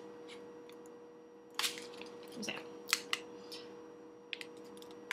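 Handling noise from a wrapped three-pack of polystyrene natto tubs being turned in the hands: a few scattered soft clicks and crinkles over a faint steady hum.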